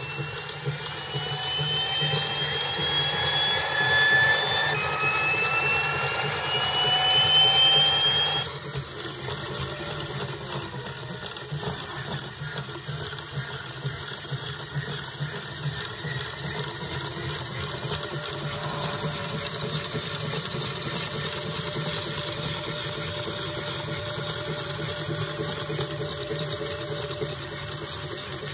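Motor-driven scale model turbofan engine running on its test stand: a whine that rises in pitch twice over the first eight seconds as the throttle is pushed up, then drops suddenly to a steady whirring hum.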